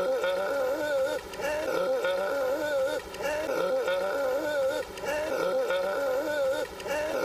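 Mr. Krabs's cartoon voice wailing in a long blubbering cry with a wavering, wobbling pitch. The same short clip repeats about every two seconds.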